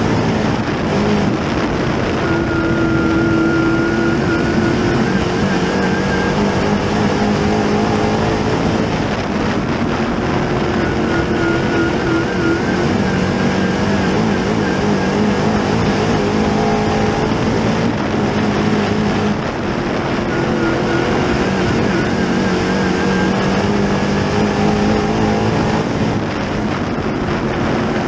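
604 Late Model dirt race car's GM 604 crate small-block V8 running hard at racing speed, heard from inside the car. The engine note holds high and then drops away every several seconds, again and again, as the car goes round the laps.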